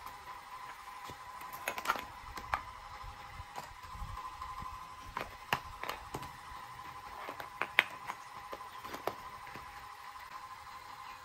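Scattered sharp plastic clicks and knocks as plugs and a power strip are handled and set down on concrete, about eight in all, with the loudest near the end, over a steady faint high whine.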